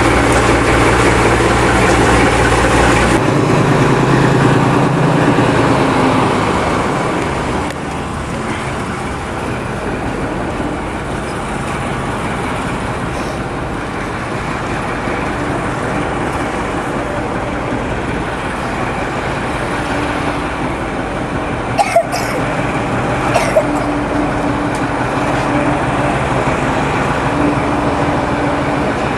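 Diesel shunter D9521 running, heard from on board. Its steady engine note changes about three seconds in, then settles into a rumble of engine and train noise, with two sharp clicks about three-quarters of the way through.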